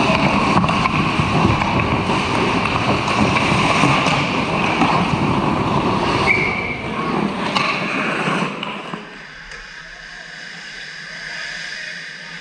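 Ice hockey scramble right at the net: skate blades scraping the ice and sticks clacking, with sharp knocks. About eight seconds in the sound drops to a much quieter steady rink hum with distant play.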